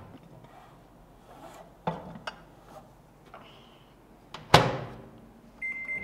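A lidded glass bowl knocks lightly as it is set inside a microwave oven, then the oven door shuts with a loud bang about four and a half seconds in. A single electronic beep sounds near the end as the oven is started, and its running hum begins.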